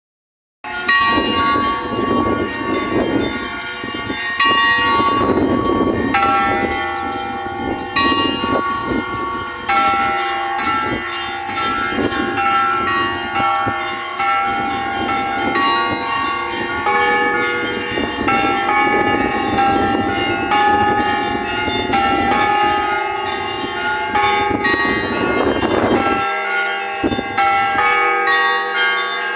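Russian Orthodox church bells rung together in a continuous peal, many bells of different pitches struck in quick succession so their tones overlap. The ringing begins about half a second in.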